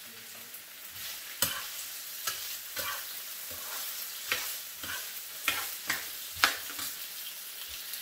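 Diced potatoes sizzling in hot olive oil in a frying pan, a steady hiss, with about eight sharp scrapes and knocks of a utensil against the pan as they are stirred.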